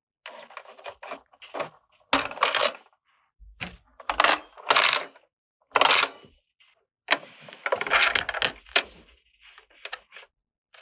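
Small hard plastic toy kitchen pieces clicking and clattering as they are handled and set down, in a string of short separate bursts with silent gaps between.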